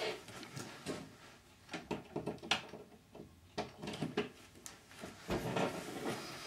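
Faint handling noise: scattered small clicks and knocks, then a low thump and rustling about five seconds in.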